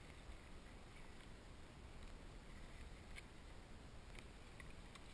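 Near silence: a faint low rumble with a few small ticks from calm water lapping at a camera floating at the surface.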